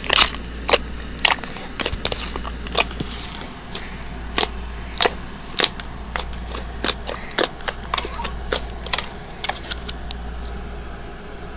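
Slime being worked by hand, giving sharp pops and clicks at irregular intervals, about one or two a second.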